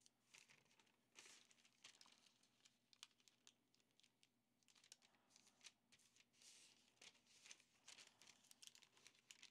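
Very faint crinkling and creasing of parchment paper being folded by hand, a few soft crisp crinkles scattered through otherwise near silence.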